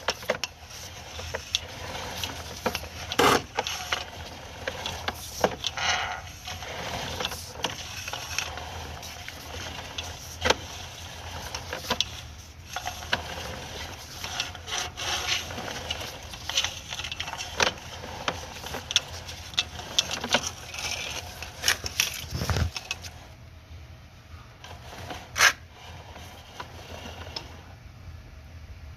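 Irregular knocks, clicks and scrapes, as of objects being handled, over a steady low hum.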